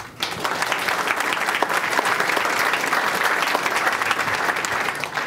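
Audience applauding: many hands clapping at once, starting suddenly and dying away near the end.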